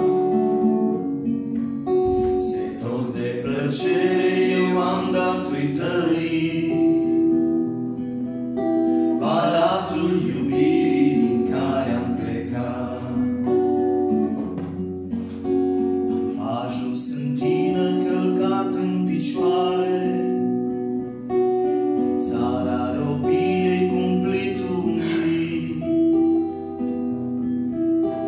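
Acoustic guitar strummed as accompaniment to men singing a Romanian Christian hymn, with short instrumental stretches between the sung lines.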